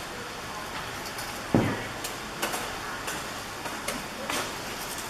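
Scattered cracks and rustles, with one heavier thud about one and a half seconds in, as coconut palm fronds are cut and fall.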